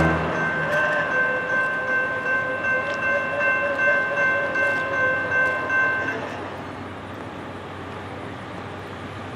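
Air horn of an approaching Norfolk Southern GE AC44C6M locomotive sounding one long chord of several notes, which cuts off about six seconds in. A quieter steady noise follows.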